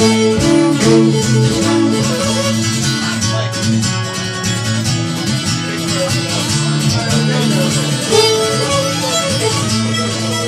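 Live Irish traditional music: a fiddle playing the tune over strummed acoustic guitar accompaniment.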